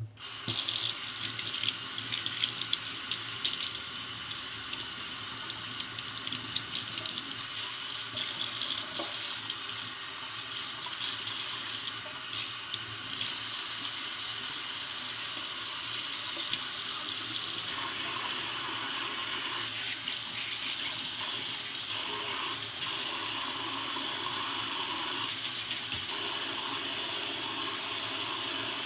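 Water tap running into a sink, starting abruptly. Scattered knocks and uneven splashing come through the first half, and the flow settles into a steady, slightly louder run after about 17 seconds.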